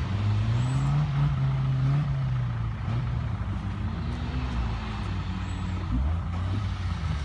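Suzuki Vitara's engine running and being revved gently, the pitch rising within the first second or two, easing off, then rising again around the middle.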